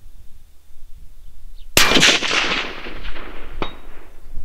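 A single rifle shot: a sharp crack with a rolling echo that dies away over about a second and a half. Nearly two seconds after the shot comes a short, fainter clang with a brief ring: the bullet striking the steel gong 500 yards downrange.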